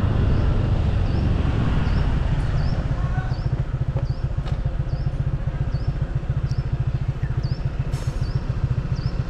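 Motorbike riding along a road, its engine running under a heavy, pulsing wind rumble on the microphone.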